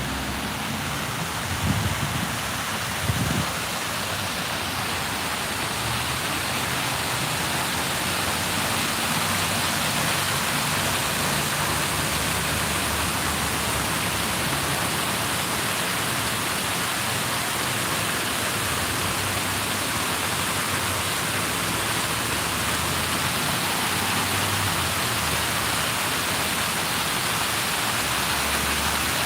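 Steady rushing, hissing noise like rain or running water, with two brief low thumps about two and three seconds in.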